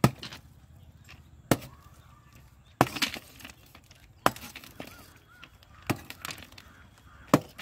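A long steel bar striking the baked sand mould of a freshly cooled thermite rail weld, breaking it away from the rail joint: six sharp knocks about a second and a half apart.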